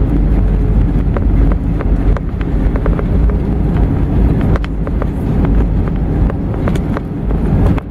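Loud, steady low rumble inside a jet airliner's cabin as it rolls down the runway after touchdown, with spoilers deployed, and scattered clicks and rattles over it.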